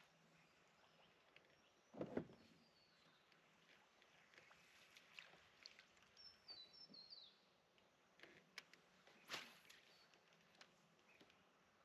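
Near-silent outdoor ambience on the water, broken by a couple of soft knocks, one about two seconds in and one a little past the middle, with a bird giving a quick run of short falling chirps between them.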